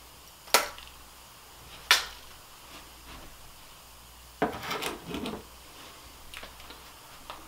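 Archery gear being handled on a table: two sharp clicks about a second and a half apart, then about a second of rattling clatter, and a couple of light taps near the end.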